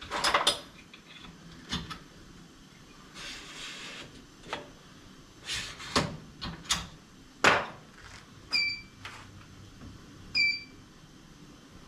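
Metal parts knocking and clanking irregularly as a wheel balancer's adapter and cone are handled and fitted. Two of the knocks ring briefly like struck steel.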